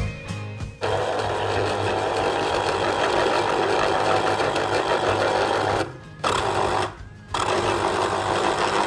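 A small electric motor, like a kitchen appliance's, running steadily, cutting out briefly twice near the end before starting again.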